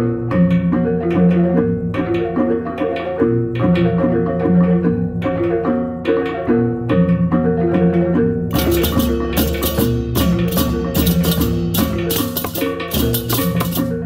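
Balinese baleganjur gamelan playing: an interlocking gong-chime (reong) melody over low gongs and kendang drums. About two-thirds of the way in, the ceng-ceng hand cymbals come in, clashing loudly in a fast rhythm.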